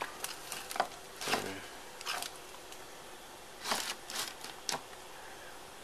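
Spice jars and shakers being handled: a scattering of short clicks, taps and brief rattles as containers are picked up, shaken and set back on a shelf.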